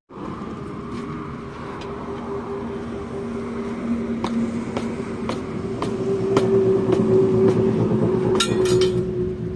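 A vehicle on the move: a steady engine hum that slowly grows louder, with light clicks coming regularly and a short rattle near the end.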